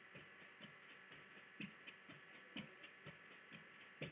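Faint feet landing on a tatami mat during jumping jacks, a steady rhythm of about two soft thumps a second.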